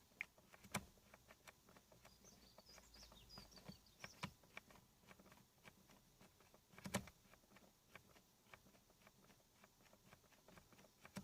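Near silence, broken by a few faint, irregular clicks and a brief faint high chirp about two to three seconds in.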